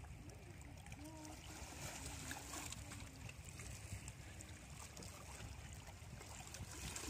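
Small waves lapping and washing against granite shoreline rocks, with wind rumbling on the microphone.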